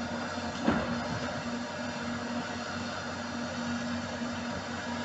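Heavy demolition excavators running steadily with a humming engine tone, and one sharp knock about a second in.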